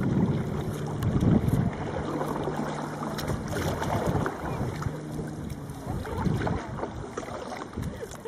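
Wind buffeting the microphone over small waves lapping against a kayak on open water, in uneven gusts.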